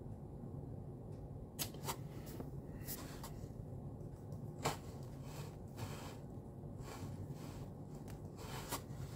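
Scattered, irregular clicks and taps on a Samsung Galaxy Book Odyssey laptop's keyboard and touchpad, about a dozen strokes, over a faint steady low hum.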